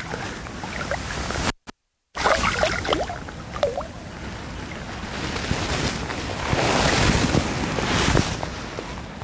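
Wind buffeting the microphone over rushing water, with a few short splashes or clicks. The noise swells about two-thirds of the way through, and the sound drops out completely for half a second near the start at an edit.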